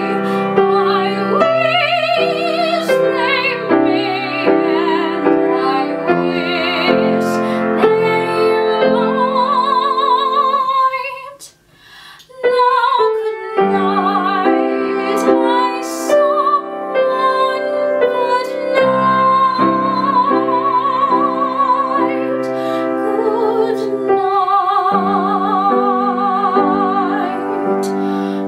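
A young woman singing a slow show-tune ballad in a classical soprano with vibrato, accompanied by piano. The music breaks off briefly about twelve seconds in, then resumes.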